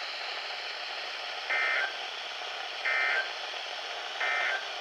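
Three short warbling data bursts of the Emergency Alert System end-of-message code, each about a third of a second long and about 1.3 s apart. They come over the steady hiss of a weather radio broadcast and mark the close of the weekly test.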